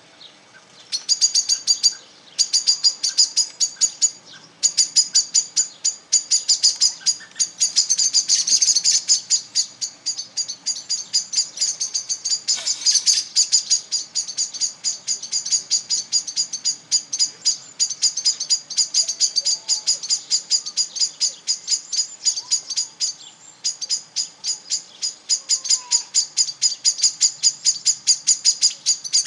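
Birds giving rapid, insistent alarm chips, about five a second, the scolding calls of small birds mobbing a cat. There are only brief pauses.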